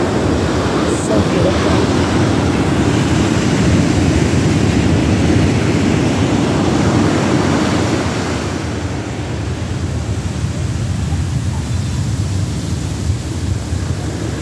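Ocean surf breaking and washing up over the sand: a steady rushing of water that eases somewhat about halfway through.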